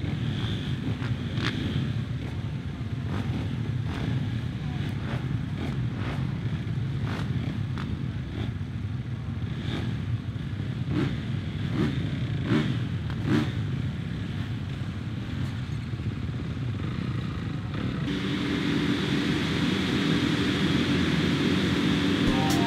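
A line of motocross bikes idling at the start gate, with riders blipping their throttles now and then. About eighteen seconds in, the engines rise together to a steady, louder drone as the riders hold revs for the start.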